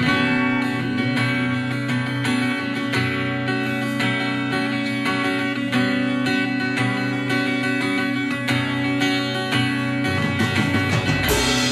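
Live rock band playing an instrumental passage: strummed guitars over bass and drums, with a crash near the end.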